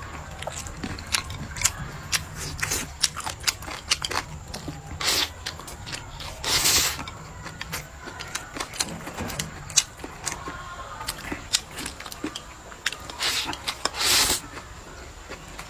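A person eating close to the microphone: many wet chewing clicks and lip smacks, with four short, loud sucking slurps.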